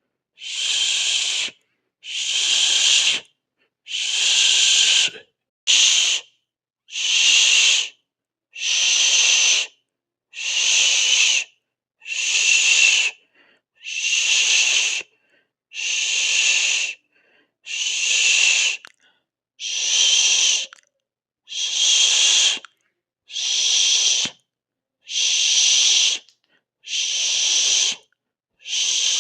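A person hissing through the teeth, a 'sss' siseo sound in regular bursts of about a second each with silence between, roughly one every two seconds.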